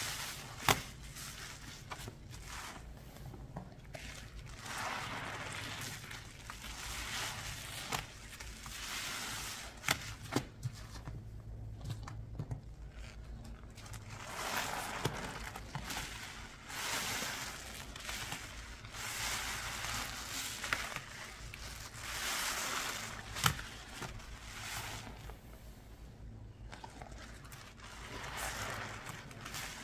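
Cleaning products being worked into a paste in a container: repeated wet scraping and squishing swells every couple of seconds, with a few sharp clicks of a tool against the container.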